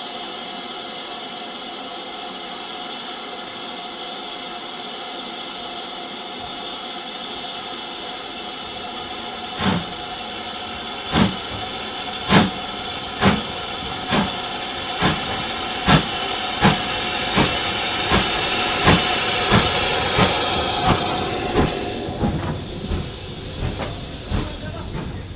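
BR Standard Class 5 steam locomotive approaching and passing close by. At first there is a steady hiss of steam. About ten seconds in, sharp exhaust chuffs begin and come faster as it picks up speed. The sound is loudest as it passes, then fades away.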